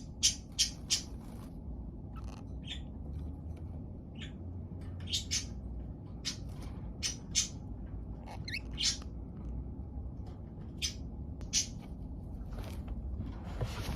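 Budgerigars chirping: a quick run of short, sharp chirps at the start, then scattered single and paired chirps, over a steady low hum.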